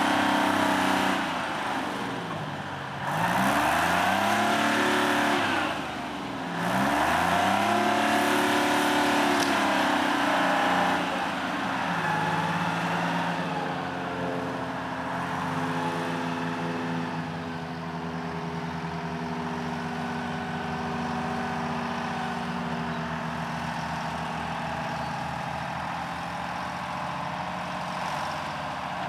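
Engine of a boom-equipped digging machine working dirt. Its pitch drops and climbs back twice in the first few seconds, then it runs steadier and a little quieter.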